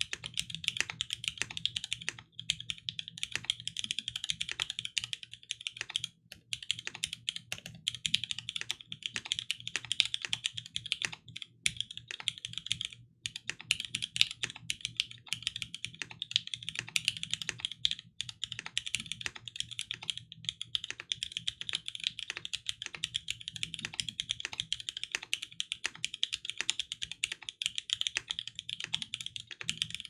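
Continuous fast typing on a NEO Keys Palette Carbon G67 custom mechanical keyboard with lubed Cherry MX Black Hyperglide linear switches on a carbon fiber plate, under PolyCaps keycaps. It is a dense run of keystroke clicks with a few brief pauses. The builder finds the carbon fiber case and plate mute the switches' higher-pitched clack.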